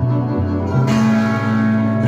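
Instrumental music played through Fleetwood Sound Deville horn loudspeakers: sustained bass notes under guitar, with the sound turning fuller and brighter about a second in.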